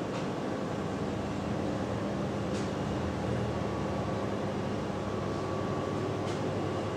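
Steady background hum and hiss of a room, with a few faint ticks.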